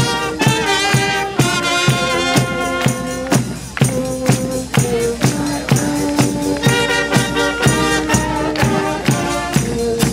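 Military brass band playing a tune: trumpets, saxophones, clarinets and tubas over a bass drum and cymbals that mark a steady beat of about two to three strokes a second.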